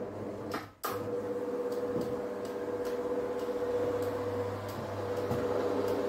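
GDO Roll 55 garage roller door motor running the door down: a click about a second in, then a steady hum with a constant whine and a regular light ticking as the slats roll down. The door is being run down while its travel limits are set.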